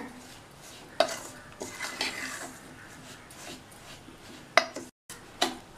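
Metal spoon scraping and clinking against a stainless steel bowl while stirring a thick, crumbly mix of soaked semolina, flour and sugar. A few sharp clinks stand out, the loudest near the end.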